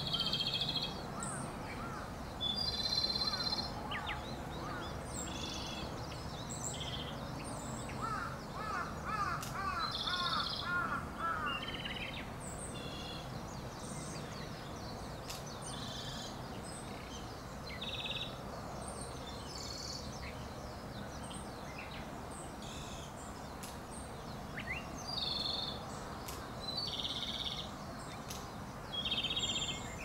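Japanese robin singing: short, high, rattling song phrases repeated every few seconds. About eight seconds in there is a run of quick, lower rising notes lasting a few seconds, all over a steady background rush.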